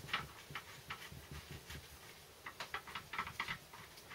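Light, irregular metallic clicks and taps of small parts being handled and set against a Land Rover Series 3 gearbox casing, with a few near the start and a quicker run of them a little past halfway.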